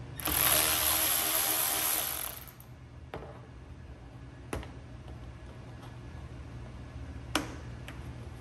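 Cordless electric ratchet running for about two seconds, backing out a T20 Torx screw. Then a few sharp clicks.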